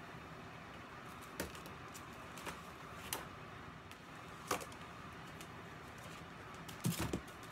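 Faint scattered clicks and light knocks of plastic slime containers being picked off a shelf and handled, with a small cluster of louder knocks near the end.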